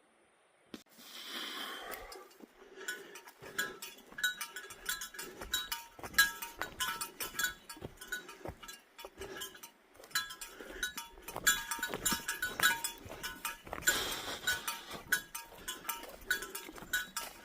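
A hiker's footsteps on a forest trail, a steady walking rhythm of about two steps a second, with a light metallic ringing jingle at each step. It starts about a second in with a click and a short rustle.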